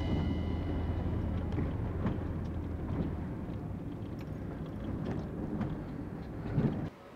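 Engine and road noise inside the cabin of a small Fiat Fiorino van driving slowly through town streets, a steady low rumble with a few faint knocks. It swells briefly and then cuts off suddenly near the end.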